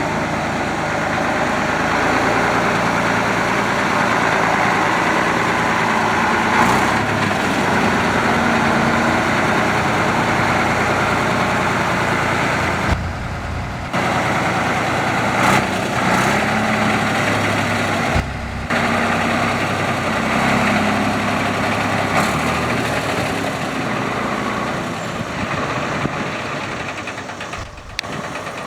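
Caterpillar 3206 six-cylinder diesel engine of a concrete mixer truck running steadily, with two brief breaks in the sound.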